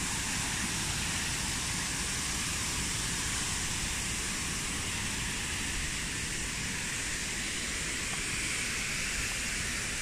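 Steady rushing of water from a small waterfall, an even hiss with a low rumble beneath it.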